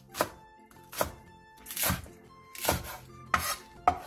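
Kitchen knife cutting a green onion into short lengths on a wooden cutting board: about six sharp strikes, a little under one a second, over soft background music.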